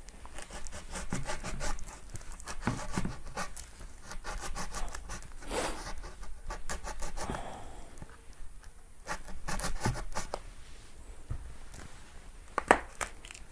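A parcel being opened by hand: irregular scraping, rubbing and tearing of packing tape and plastic wrapping, with a sharp click near the end.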